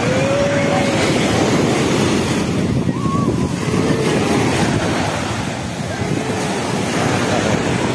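Small waves washing onto a sandy beach, mixed with steady wind noise on the microphone. Faint distant voices of people on the beach call out now and then.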